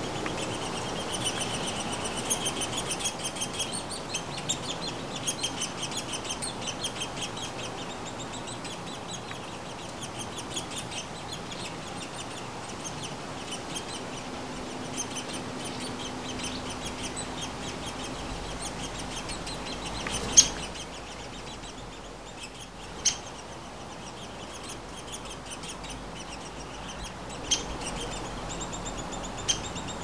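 Nuttall's woodpecker nestlings begging: rapid, repeated high calls, several a second, densest over the first several seconds and then more scattered. A few sharp, loud clicks break in during the second half.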